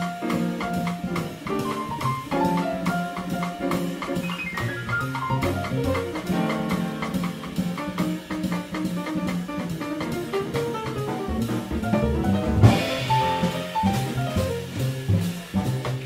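Live jazz from a piano, upright bass and drum kit, the ride cymbal keeping a steady pulse under piano lines and a walking bass; a loud cymbal crash lands about three-quarters of the way through.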